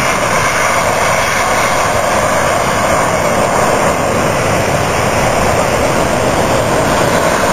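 Airbus A380 jet airliner on landing approach, its four turbofan engines running in a loud, steady jet roar as it flies in low.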